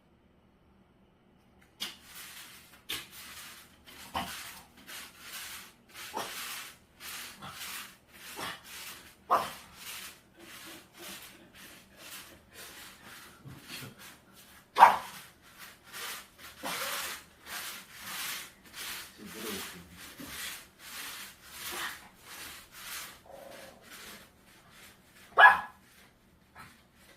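A dog barking again and again in short barks, starting about two seconds in, at a bladeless fan it is afraid of. Two barks, one about halfway and one near the end, are much louder than the rest.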